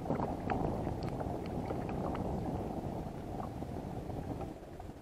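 Wind noise on the microphone over water lapping at a kayak, with a small yellow perch splashing at the surface in the first couple of seconds as it is reeled in.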